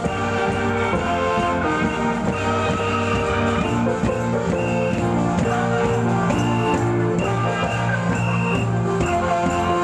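A Taiwanese women's funeral band playing a tune: held melody notes over a steady drum beat.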